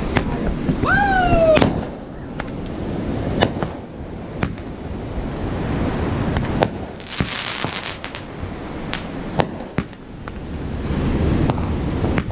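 Fireworks display: a string of sharp bangs from shells launching and bursting, irregularly spaced, with a falling whistle about a second in and a brief hiss about seven seconds in, over a steady low rumble.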